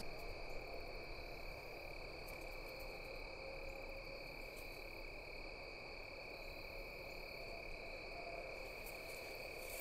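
Faint, steady chorus of field insects: a continuous high-pitched trill.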